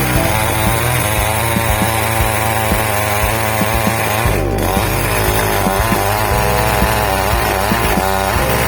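Ibell chainsaw running hard as it cuts teak wood. Its engine pitch wavers under load and dips briefly about halfway through.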